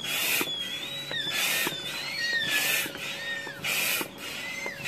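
Hand air pump worked in steady strokes, each stroke a short hiss of air about once a second, with a high thin squeal gliding up and down over them: air is being pumped into a slaughtered sheep or goat carcass to lift the skin away for flaying.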